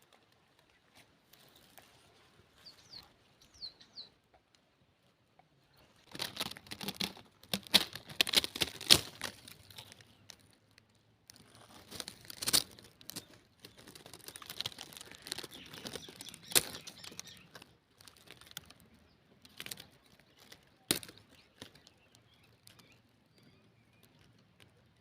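Intermittent rustling and crackling in two longer spells, with a few sharp clicks later on; faint high chirps, likely a bird, about three seconds in.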